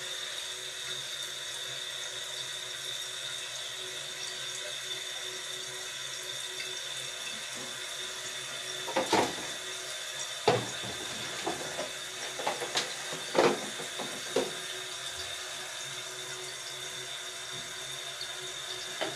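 Toilet tank refilling through a newly installed fill valve (ball cock): a steady hiss of water with a thin high tone. A few short knocks and clicks come about halfway through.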